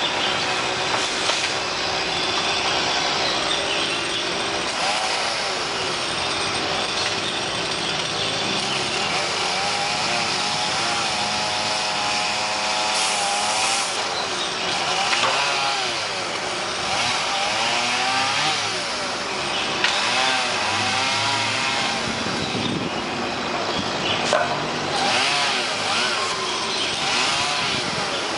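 Chainsaw running continuously while cutting branches, its engine pitch rising and falling with the throttle and load.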